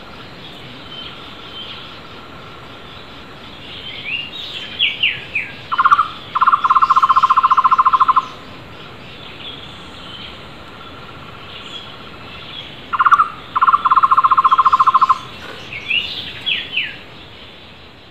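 Flame-fronted barbet (takur tohtor) calling twice, each time a short note followed by a rapid, even trill lasting about two seconds. Other wild birds give short falling whistles just before each call, and a fainter trill sounds in between.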